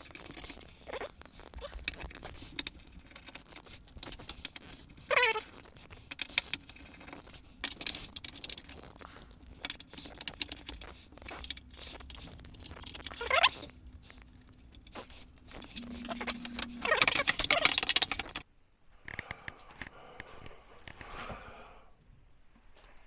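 Duct tape being worked off the roll and pressed down, with crackling and clicking handling noise throughout. Two sharp rips fall in pitch, and a longer, louder stretch of tape noise near the end stops suddenly.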